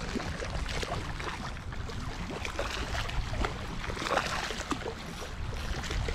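Small waves lapping and splashing on a sandy lake shore, with wind rumbling on the microphone.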